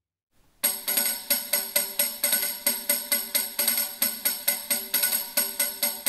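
Tambourine played in a steady rhythm, about four strokes a second, its metal jingles ringing; it starts about half a second in.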